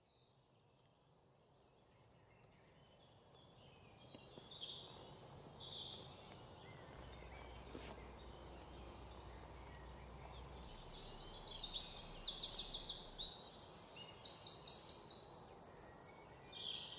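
Birds chirping and calling outdoors, with short high chirps and rapid trills. The calls start faintly a few seconds in and grow busier towards the middle.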